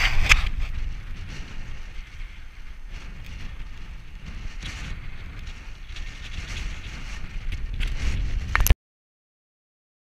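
Wind buffeting a small action-camera microphone, a steady low rumble, with a few knocks of the camera being handled in the first second. It cuts off suddenly near the end.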